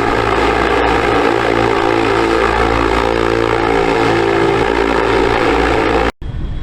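Small electric motor spinning a propeller, running steadily at speed with a buzzing whine. It cuts off abruptly near the end.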